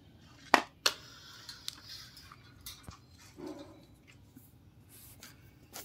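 Two sharp clicks about half a second in, then faint scattered clicks and rustling: Alexandrine parakeets moving about a wire cage.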